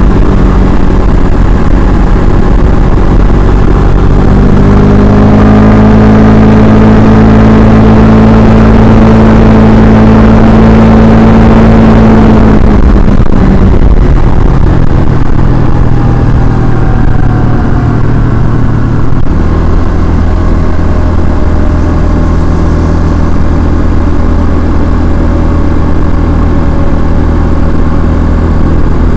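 Kymco KRV scooter's single-cylinder engine and exhaust running under way, loud and steady. The engine note rises a few seconds in, drops about 13 seconds in, and settles at a lower, even pitch from about 19 seconds.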